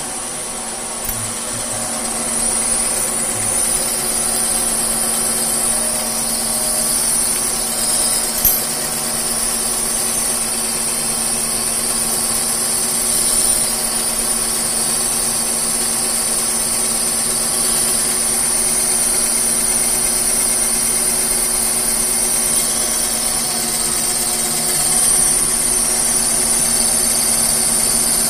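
K&T milling machine rigged as a lathe, turning an Aquamet 22 stainless bar with a carbide insert: steady machine hum and a steady high whine with the hiss of the cut, a depth of cut the machine takes comfortably. A brief click about eight seconds in.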